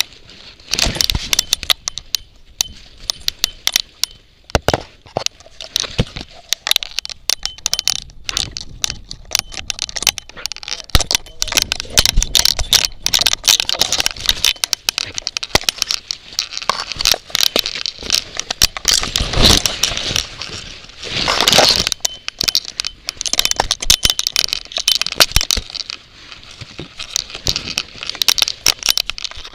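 Dense, irregular crackling and scraping of leaves, twigs and brush brushing against a collar-mounted action camera as a dog pushes through bushes, with a louder stretch of rustling about two-thirds of the way through.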